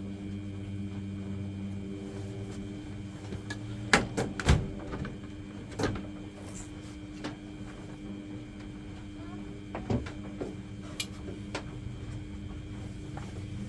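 Sharp knocks and clacks from the washing machine's top panel being worked loose and handled: a pair of loud ones about four seconds in, another around six seconds, and a few more near ten seconds, over a steady low hum.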